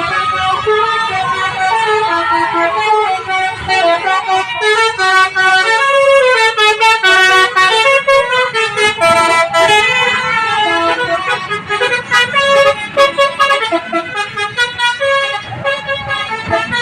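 Telolet multi-tone bus horn playing a fast melody, its notes stepping up and down in pitch every fraction of a second.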